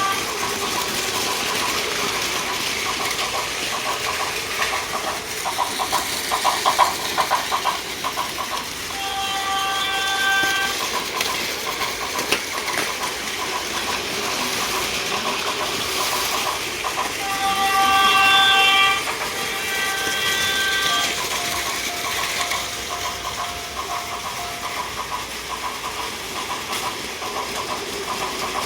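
Plarail toy trains running on plastic track, with small motors whirring and wheels clicking rapidly over the track joints. A built-in sound unit adds electronic train running sounds and short horn-like tones, heard about a third of the way in and twice more near the middle, followed by a held single tone.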